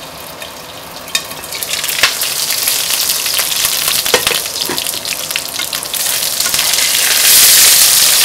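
Onions sizzling as they fry hard in a pan, browned almost to burning. A glass pan lid is lifted off and set down with a few sharp clinks. The sizzle grows louder after the lid comes off and is loudest near the end, as the onions are stirred with a wooden spatula.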